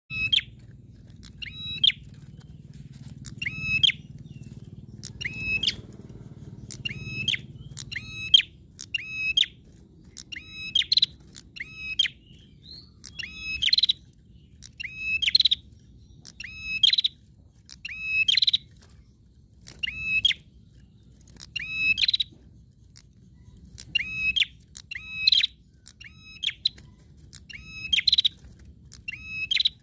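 Caged prenjak songbird calling over and over: short, sharp, ringing phrases repeated about every one to one and a half seconds, some twenty in all.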